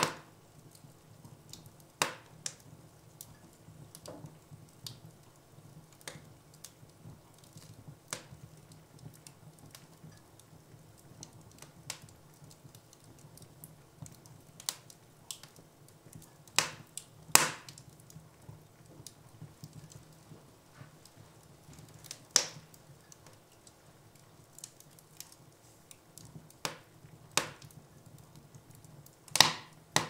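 Logs burning in an open fireplace, crackling with scattered small ticks and a loud sharp pop every few seconds, two close together in the middle and one near the end.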